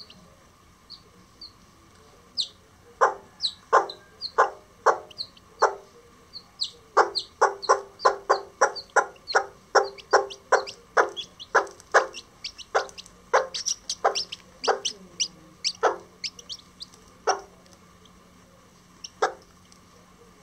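Self blue Old English Game bantam hen clucking in a quick run of short, sharp clucks, fastest in the middle and thinning out near the end, the call a hen uses to bring her chicks to food. Faint high peeps from the chicks come in between, mostly early on.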